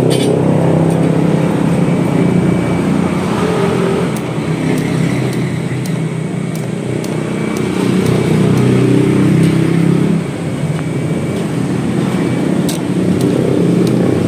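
Motor vehicle engine running with a steady low hum. Its level dips and swells over several seconds, with a couple of sharp clicks near the end.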